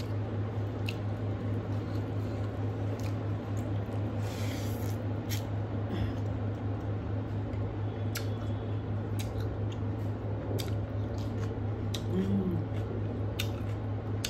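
Eating rice and curry by hand: fingers squishing and mixing rice on a plate, with chewing and scattered wet mouth clicks and smacks. A steady low hum runs underneath.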